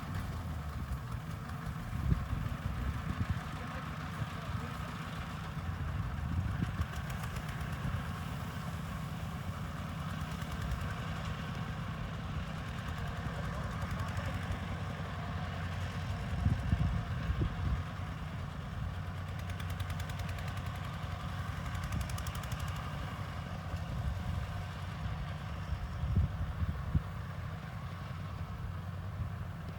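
Diesel tractor engine running steadily with a low, even tone, swelling louder briefly now and then.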